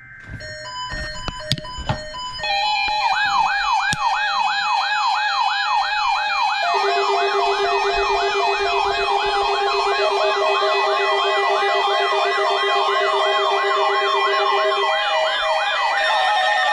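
Weather radio test alert signal: layered electronic tones. From about two and a half seconds a siren-like tone rises and falls about twice a second over several held tones. A lower steady tone joins partway through and drops out near the end.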